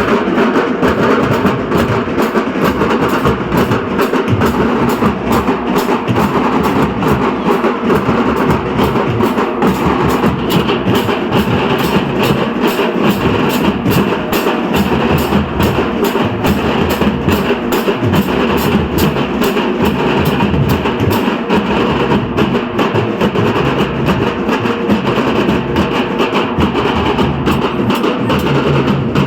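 Dhol-tasha ensemble playing: dhol drums under a fast, continuous roll of tasha strokes, without a break.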